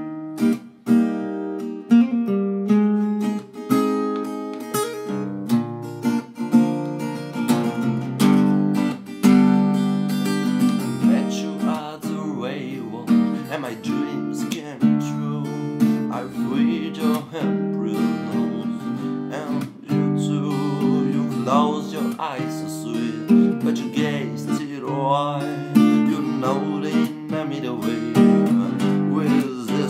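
Acoustic guitar strumming chords as the accompaniment to a song, with a voice singing over it from about twelve seconds in.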